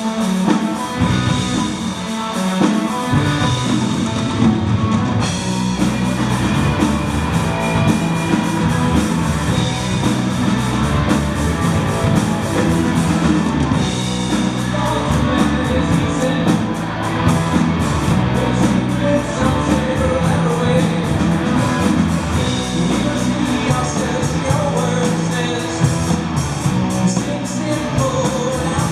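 Rock band playing live: drum kit, guitars and bass.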